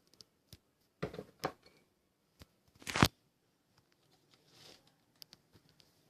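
A few short crackling noises, the loudest about three seconds in, among faint clicks and taps.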